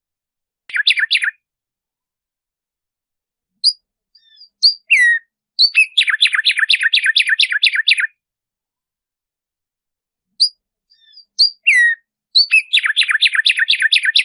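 Black-striped sparrow (tumbayegua) singing. A short burst of notes comes about a second in. Then come two songs, each a few spaced notes followed by a fast, even run of notes lasting about two seconds.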